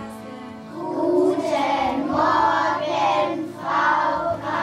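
A group of young children singing a song together, starting about a second in, in held phrases of about a second each.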